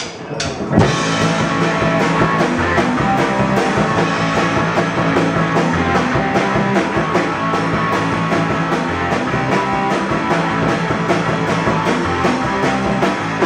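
A rock band playing live on electric guitar, electric bass and drum kit. After a few separate hits, the full band comes in about a second in and plays on with a steady beat, with no singing.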